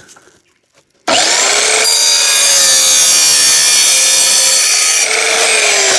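Cut-off saw starting about a second in, its motor spinning up, then cutting through a metal towel rail tube with a loud, steady high whine.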